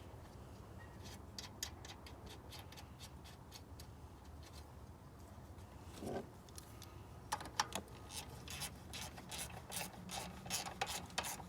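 Ratchet wrench clicking and scraping as the bolt of a car battery's hold-down bracket is tightened. The sound is faint and comes in scattered clicks, then a quick run of clicks in the last few seconds.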